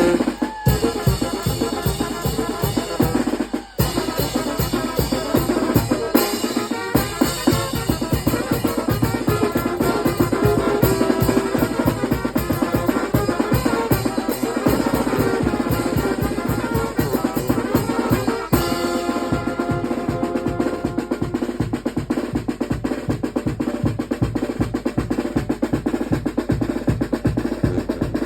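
Mexican wind band (banda de viento) playing carnival music, with horns over a fast, steady beat of snare and bass drum. The music drops out briefly about four seconds in, and the texture changes about two-thirds of the way through.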